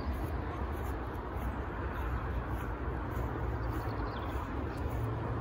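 Steady outdoor background noise: a low rumble with a lighter hiss over it and no clear single event.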